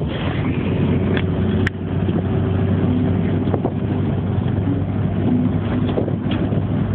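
Steady engine and road noise with wind rushing, heard from inside an open-top convertible as it drives along.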